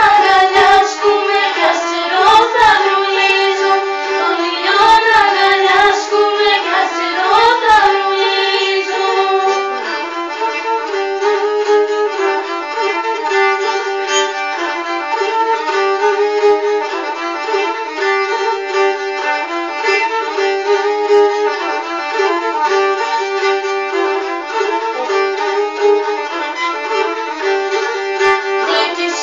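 Pontic Greek music playing: a bowed Pontic lyra (kemenche) carries a quick, continuous melody, with a few low thumps in the first eight seconds.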